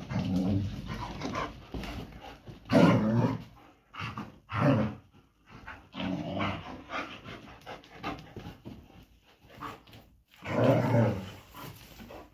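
German shepherds fighting, growling and snarling in several short bursts, the loudest about three seconds in and again near the end.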